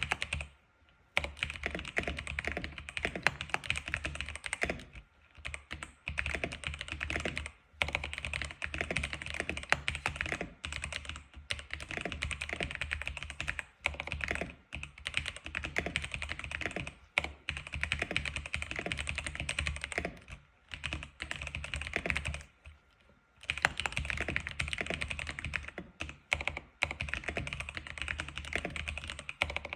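Typing on an X87 keyboard: a fast, continuous run of key clicks, broken by a few short pauses of under a second.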